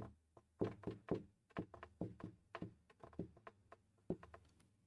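Dry-erase marker tapping and stroking on a whiteboard as words are written: a quick, irregular run of faint short knocks.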